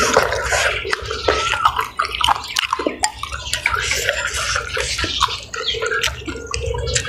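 A person chewing and slurping food with close, wet mouth sounds, with short clicks of a metal spoon against a glass bowl.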